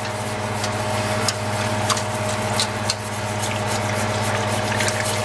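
Pepper mill grinding black pepper over a pan of cream sauce: a dry rasping with scattered small clicks, over a steady hum.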